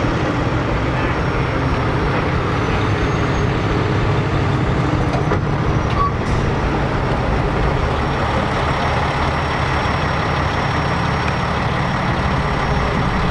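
Heavy tow truck's diesel engine running steadily at a constant speed, with one brief click about six seconds in.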